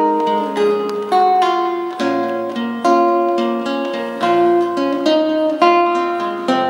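Nylon-string classical guitar playing a slow picked intro: single notes and chords ring out and fade, with a new phrase struck about every second.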